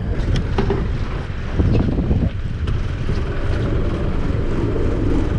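Steady low rumble of a boat's engine running with wind buffeting the microphone, and a few light knocks.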